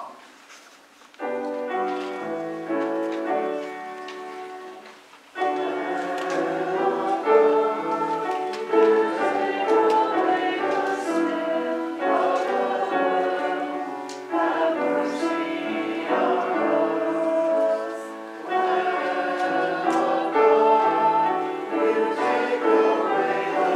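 A church congregation singing a hymn with instrumental accompaniment, in steady held chords. It starts about a second in, breaks off briefly near five seconds, then carries on.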